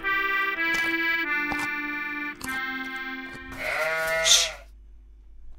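Accordion music playing a melody of held notes, cut off about four seconds in by a short, loud, wavering cry, after which it goes quiet.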